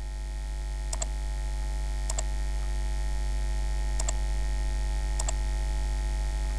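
Steady electrical mains hum picked up by the recording. Four quick double clicks of a computer mouse come about one, two, four and five seconds in.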